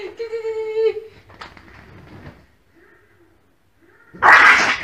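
A woman's voice drawing out a word in a high sing-song call, then a few seconds of faint sound, and near the end a sudden loud, harsh outburst.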